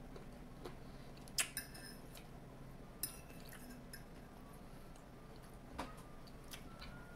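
Quiet chewing of food, with a few sharp clinks of a metal fork against the plate, the clearest about one and a half and three seconds in, each ringing briefly.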